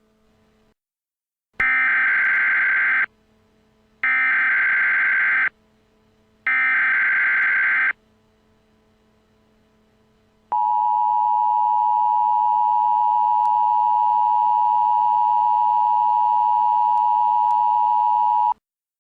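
Emergency Alert System alert opening: three identical bursts of SAME digital header data, each about a second and a half long. A few seconds later the two-tone EAS attention signal comes in and holds steady for about eight seconds.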